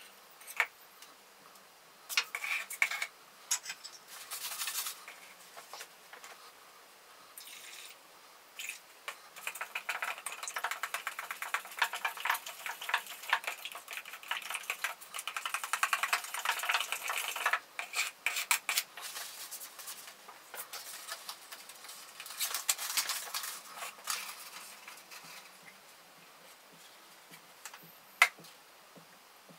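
Nitrocellulose lacquer being mixed with thinners in a plastic cup. A few clinks and knocks as the tin and tools are handled, then a long spell of stirring, with the stick scraping and tapping against the cup, and a sharp click near the end.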